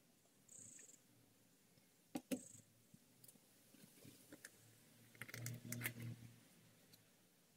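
Near silence with a few faint clicks and knocks of a plastic oil jug and funnel being handled: two sharp knocks a little over two seconds in, then a cluster of light clicks as the funnel is fitted into the motorcycle engine's oil filler neck.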